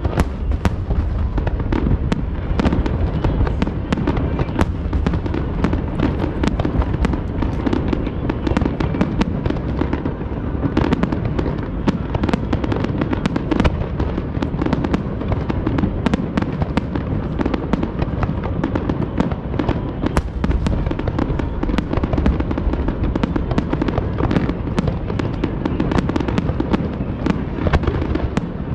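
Fireworks display in full barrage: a continuous stream of sharp bursts and pops, many a second, over a steady low rumble of shell reports.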